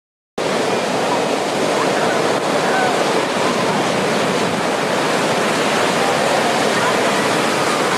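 Heavy surf breaking, a steady roar of waves and whitewater that begins abruptly a moment in.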